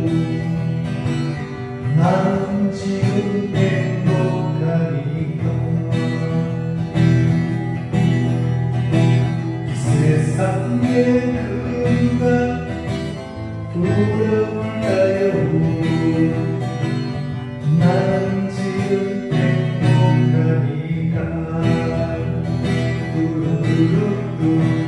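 Acoustic guitar strummed steadily under a man singing a melody.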